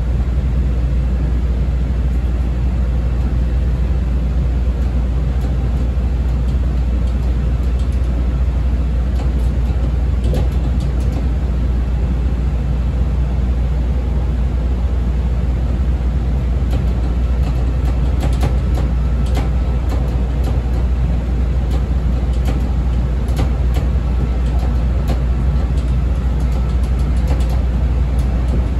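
Inside a CTA 5000-series rapid-transit railcar running steadily at speed: a loud, even low rumble of the train on the rails, with a few faint clicks now and then.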